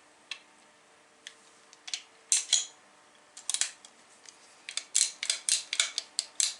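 Metal clicks and clinks from an 1858 Remington cap-and-ball revolver's parts being fitted back together by hand. The clicks are scattered at first, then come in a quick run of about eight over the last two seconds.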